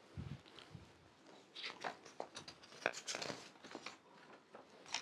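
Faint handling noise in a small room: a couple of low thumps in the first second, then scattered clicks and crinkling rustles.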